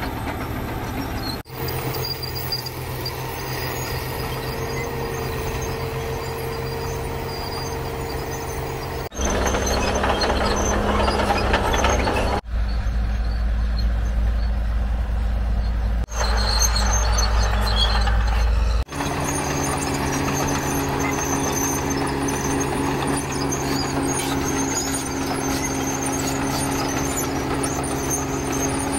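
Diesel engines of a Komatsu PC450 hydraulic excavator and a Cat bulldozer running under load while they dig and push earth. The sound changes abruptly several times between takes, and a deep rumble is loudest in the middle stretch.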